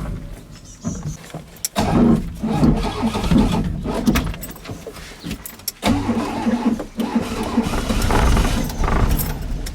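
Trabant 601's two-stroke, two-cylinder engine cranking and sputtering on a cold start, in several short segments that cut off abruptly between clips.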